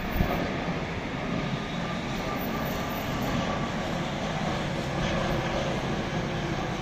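Jet airliner on short final approach with its landing gear down: the engines make a steady noise.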